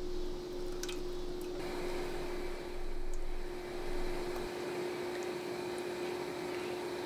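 Thick butternut squash purée sliding out of a blender jar into a steel pot and being stirred with a spoon: soft wet squishing, with a few faint clicks, over a steady hum.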